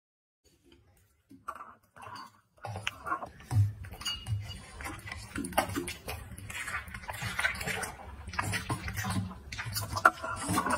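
A bully-breed dog licking and eating food off a ceramic plate, the plate clinking and scraping against the tabletop in a dense run of small clicks and rubs. It starts with a few scattered clicks after a second or so of near silence and becomes continuous a little later.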